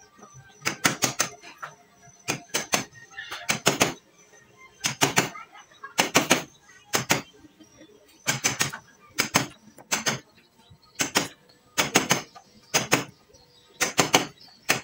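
Hammer striking a steel chisel to cut a mortise in a hard ulin (Bornean ironwood) beam: sharp, ringing blows in quick runs of two or three, about one run a second.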